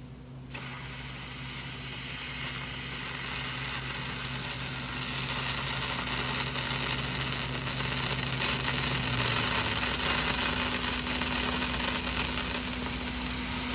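6 kW fiber laser cutting 1-inch carbon steel: a steady hiss of the cut and the gas jet from the cutting head, slowly growing a little louder. A low machine hum runs under it and stops about nine seconds in.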